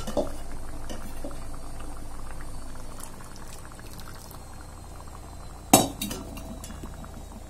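Water poured in a thin stream from a mixer jar into a metal pan of simmering coconut-dal gravy. About six seconds in comes a sharp clink, the loudest sound, followed by a few lighter clinks.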